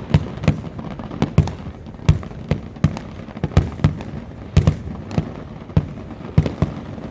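Aerial fireworks bursting in quick, irregular succession, about two sharp booms a second.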